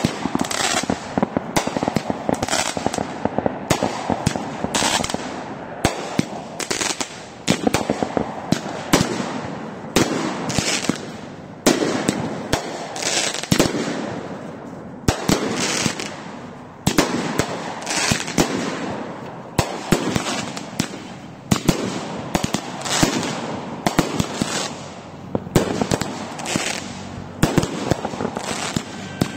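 Aerial fireworks going off: a continuous run of sharp bangs and crackles, several a second, in louder clusters every second or two.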